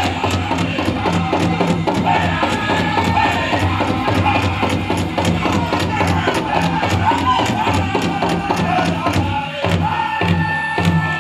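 Powwow drum group singing a chicken dance song: high-pitched voices over a steady, evenly spaced beat on the big drum.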